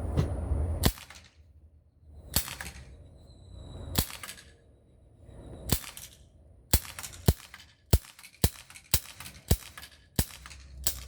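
Glock 19 replica CO2 BB pistol firing about a dozen shots, each a sharp crack. The first few come about one and a half seconds apart, and from the middle on they follow roughly every half second.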